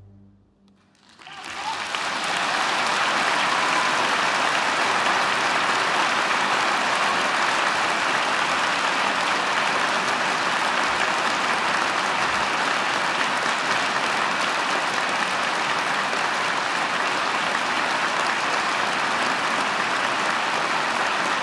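The last held low cello note dies away at the very start, and after about a second of near silence a large audience breaks into applause, which swells quickly and then holds steady.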